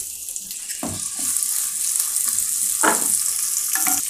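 Sliced onions sizzling in hot ghee and oil with whole spices, the sizzle growing louder about a second in, with a few scrapes of a ladle stirring the pan.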